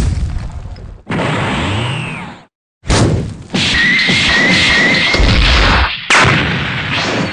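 Anime-style fight sound effects: a heavy hit, a rushing whoosh, a second hit, then a long energy-blast rush with a wavering high whine. It ends in a smash like shattering glass.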